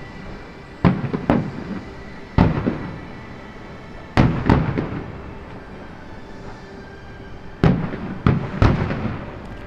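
Aerial fireworks bursting at the show's finale: about nine sharp bangs, some in quick pairs and triples, each trailing off in an echoing rumble.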